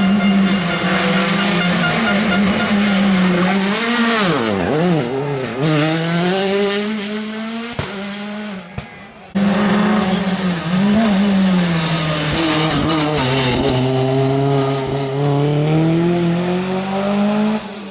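Rally car engine at high revs, its pitch swinging quickly up and down with throttle blips about four to six seconds in. It cuts off abruptly about nine seconds in, and another run follows with a steadier engine note that dips and then climbs again.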